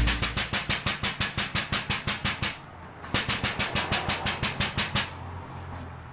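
Air-over-hydraulic pump of a Big Red pneumatic spring compressor chattering in a fast, even run of clicks, about eight a second, as it jacks up to compress a strut coil spring. It pauses briefly, runs again for about two seconds, then stops, leaving a faint low hum.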